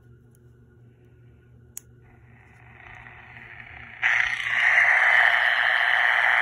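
Zenith Royal 20 transistor radio coming back to life after its corroded battery terminals were cleaned: a click, then faint static hiss from its small speaker that grows, jumping to loud static about four seconds in.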